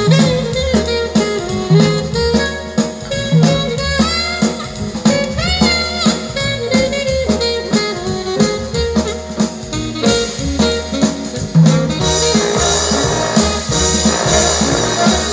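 Jazz music with saxophone, brass and drum kit played through a pair of Bose 101 MMG speakers in a sound test, over a steady repeating bass pattern. About twelve seconds in the band gets fuller and brighter.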